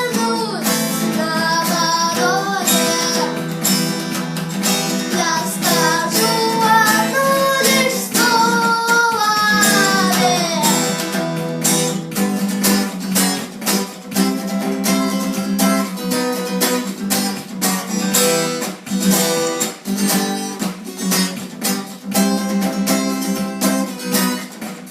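A voice sings over a strummed acoustic guitar for about the first ten seconds, then the guitar strumming carries on alone.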